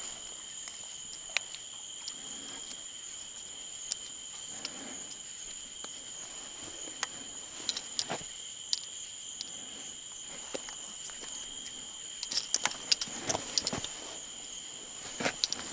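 Steady chorus of insects holding two high, even tones, with scattered light clicks and taps of handling on a concrete ledge, thickest near the end.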